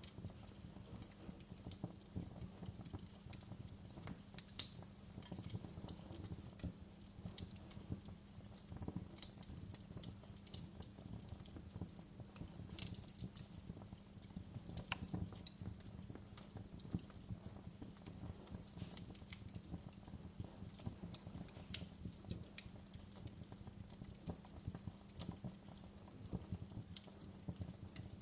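A fire crackling: irregular sharp pops and snaps, a few louder than the rest, over a soft low steady rumble.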